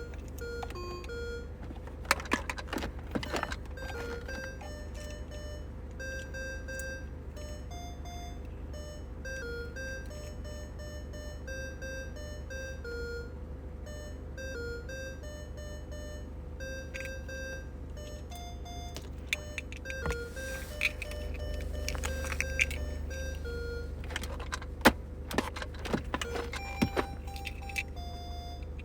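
Vintage electronic bird toy playing a simple beeping tune, one tinny note after another, over a steady low hum. Two bursts of sharp clicks and knocks come through it, a couple of seconds in and again near the end.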